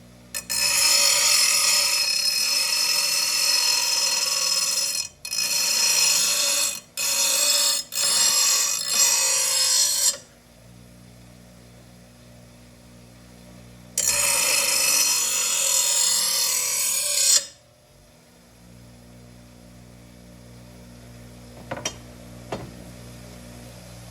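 A power grinder grinding the edge of a steel lawn mower blade: a harsh grinding for about ten seconds, broken by several short lifts off the metal, then a second pass of about three seconds, with the tool's motor humming unloaded in between. Two faint clicks near the end.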